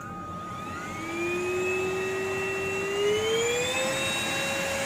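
Leacco S22 handheld cordless vacuum cleaner's motor running with a high whine that starts about a second in, then climbs in pitch about three seconds in and holds there as it steps up from the mild setting to a stronger suction level.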